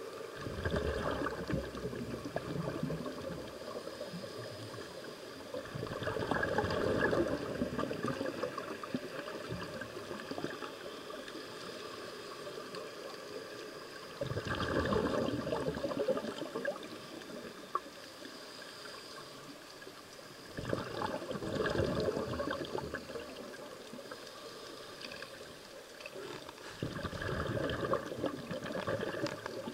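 Scuba diver's exhaled air bubbling out of the regulator in five bursts, about every six to seven seconds, with quieter water noise between.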